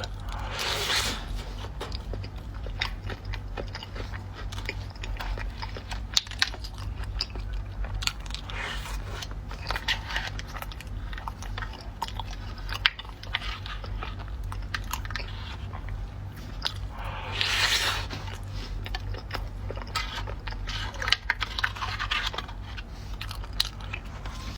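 Close-miked eating of a chocolate dessert: wet chewing and biting with many small clicks and light crunches, and a few louder, noisier bites. A steady low hum lies underneath.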